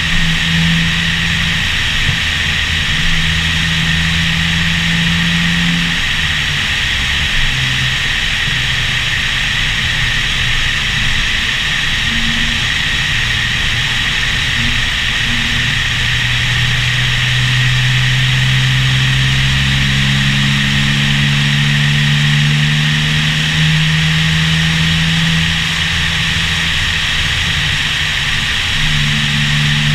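Porsche 911 Turbo S twin-turbo flat-six running under way, its low note stepping up and down in pitch and climbing slowly through the middle, under a steady rush of wind on the microphone.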